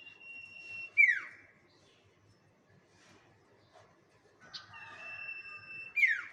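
A bird lure call, sounded twice about five seconds apart: each time a held high whistle lasting about a second, ending in a loud, sharp downward-sweeping note.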